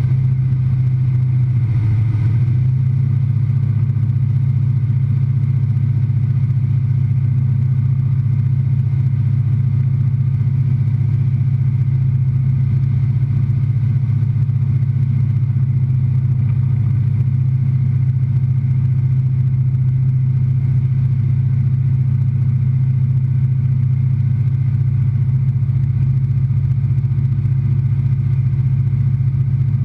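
Single-engine propeller aircraft's piston engine and propeller droning steadily in flight, heard from inside the cockpit: a loud, even low hum that holds constant throughout.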